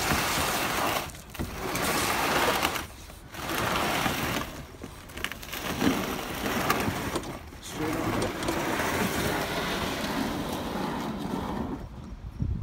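Aluminium canoe hull scraping over the pebbly shallow lake bottom as it is pushed off the shore, in about five long scrapes with short breaks between pushes.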